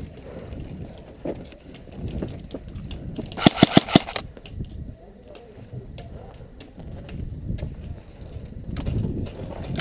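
Airsoft gun firing a quick burst of about five shots, about three and a half seconds in, between stretches of low rustling movement.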